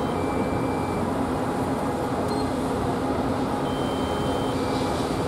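Small quadcopter drone's propellers humming steadily as it is brought down to land. Faint two-note electronic beeps sound twice over it.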